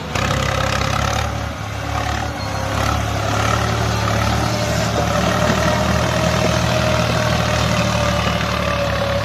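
Swaraj tractor's diesel engine working hard as it pulls a loaded trolley up a dirt slope: a steady low throb with a faint whine that creeps up in pitch over the last few seconds.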